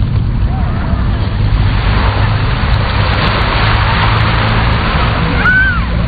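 Wind rumbling on the microphone over the hiss of small waves washing onto a sandy shore, the hiss swelling in the middle. Faint distant voices, with a brief call near the end.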